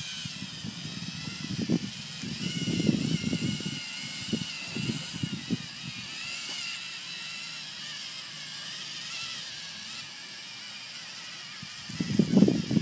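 Lego Mindstorms EV3 robot driving on rubber Technic tank tracks: a steady, wavering whine from its electric motors, with the tracks crunching over dry grass and leaves in uneven bouts, loudest near the end.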